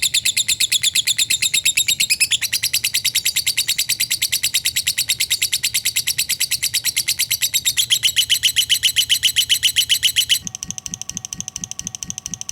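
A lovebird's 'ngekek' song: a long, unbroken, very rapid high-pitched chattering trill, shifting pitch a couple of times. About two seconds before the end it cuts off suddenly and a quieter, fast-pulsing sound takes over.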